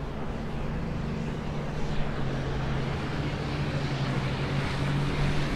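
A motor's steady low drone, with a rushing noise that swells toward the end.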